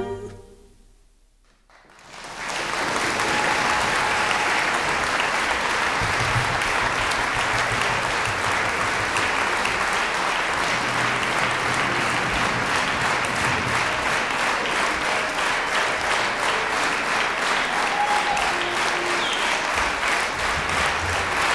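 A concert hall audience applauding at the end of a song. The last sound of the music dies away in the first second, there is a brief hush, and about two seconds in the applause starts and holds steady.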